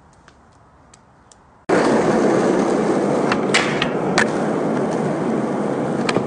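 Faint light ticks, then a sudden switch to a skateboard's wheels rolling loudly on a hard court surface, broken by several sharp clacks of the board popping and landing tricks.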